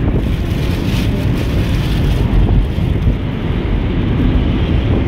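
Steady low rumble of engine and road noise heard from inside the cabin of a moving car.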